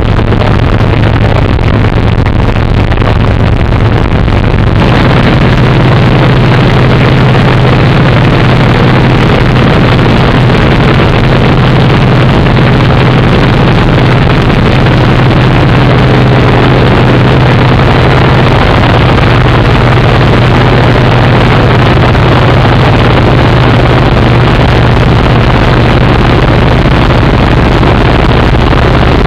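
Antonov An-2's nine-cylinder radial engine droning steadily, heard from inside the cabin. About five seconds in it gets a little louder and slightly higher.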